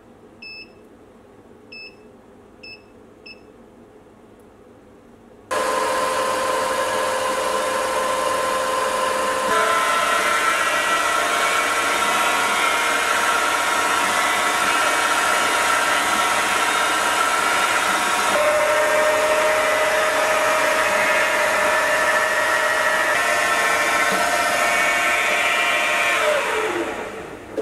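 A digital readout's keypad beeps four times as keys are pressed. About five seconds in, a milling machine's spindle starts and runs steadily while drilling holes in a metal ring. Its whine shifts pitch a few times, then falls away near the end as the spindle winds down.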